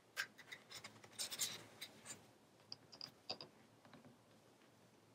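Faint rustling and scraping of patterned paper being slid into a cardstock pocket and pressed into place by hand, with a few light ticks.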